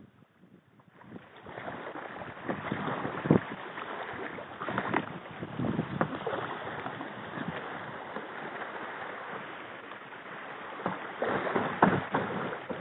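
Moving river water rushing and splashing around a kayak running a shallow riffle, starting about a second in, with irregular splashes and knocks against the hull, loudest near the start and again near the end.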